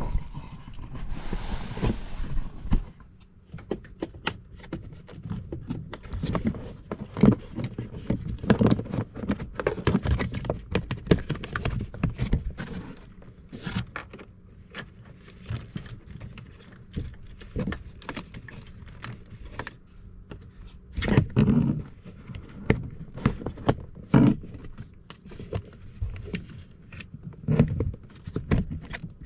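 Car interior plastic trim being handled and pressed back into place: irregular knocks, clicks and handling noise, with a short hissy rustle about a second in.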